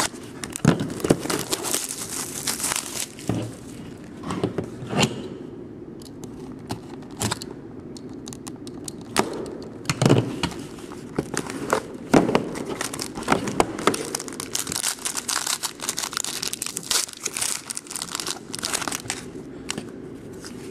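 Packaging of a hockey trading-card box being torn open and crinkled, with scattered knocks and clicks as the box and cards are handled.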